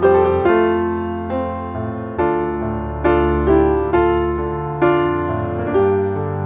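Background piano music: slow notes and chords struck about once a second, each ringing out and fading before the next.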